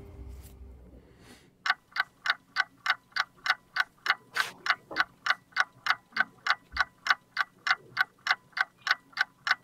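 Clock ticking, evenly and fast at about three ticks a second, starting about one and a half seconds in as the intro music fades out.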